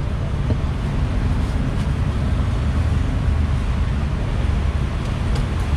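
Steady low rumble of street traffic, with a few faint short knocks of a cleaver on a wooden chopping block, once early and twice near the end.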